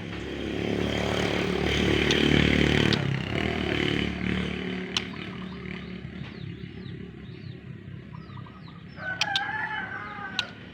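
A rooster crows once near the end, over a run of small, quick bird chirps. A louder rumbling noise swells and fades in the first three seconds.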